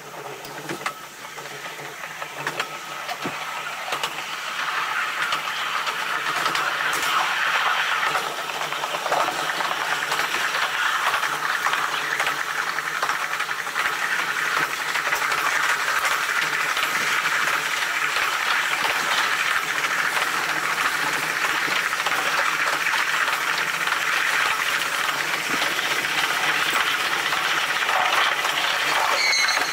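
Running noise of a train on rails, played back at triple speed, so it comes out as a dense, rushing hiss. It grows louder over the first few seconds and then holds steady.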